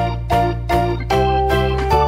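Background music: a melody of short keyboard notes, a new one about every 0.4 s, over a held bass line.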